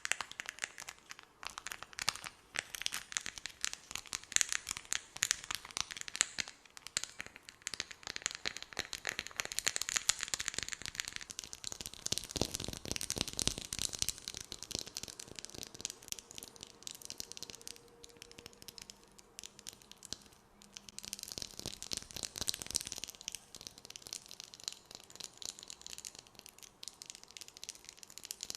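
Close-miked ASMR mouth sounds: a dense, irregular stream of sticky, wet clicks and crackles, mixed with quick taps. It thins out for a while in the middle, then picks up again.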